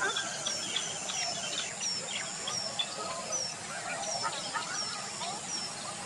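A chorus of wild birds calling and chirping, with a thin, high, falling whistle repeated over and over among many shorter chirps and calls.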